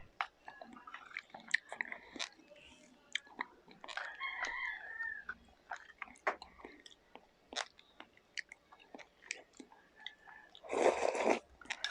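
Close-up eating sounds: chewing and mouth noises with many small sharp clicks, like a spoon on a plate or mouth smacks. A short pitched call sounds about four seconds in, and a brief rustling burst comes near the end.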